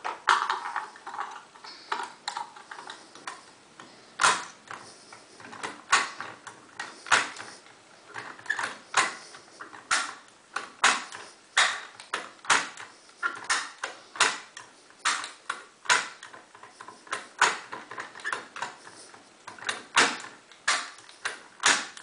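Sharp metallic clicks and clacks inside an Auno 6+6 lever lock as a lever-lock pick is worked and turned in it, coming irregularly about once or twice a second.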